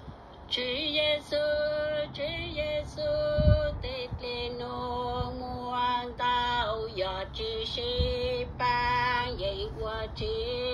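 A woman singing solo in Hmong, holding long, wavering notes that slide from one pitch to the next, with short breaths between phrases. A couple of low thumps come through, about a third of the way in and again later.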